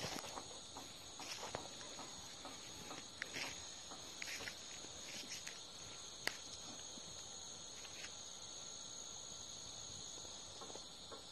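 Steady high-pitched chorus of insects, a continuous shrill buzz. Over it come scattered light crackles and rustles of footsteps and handling in dry brush, with one sharper snap about halfway through.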